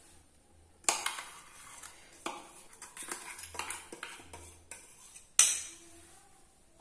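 Steel spoon scraping and clinking against a stainless steel mixer-grinder jar as thick batter is scooped out into a steel bowl. The sharp clinks come at irregular moments, the loudest about five and a half seconds in.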